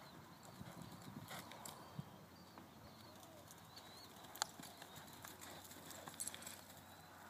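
Faint hoofbeats of a horse on soft arena sand as it lopes, stops and turns to work a calf, with one sharp click about four seconds in.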